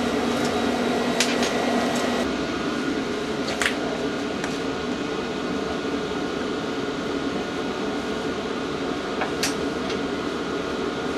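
Steady drone of a Chinese diesel-fired warm-air heater running, with a few sharp light clicks from metal parts being handled about a second in, midway and near the end.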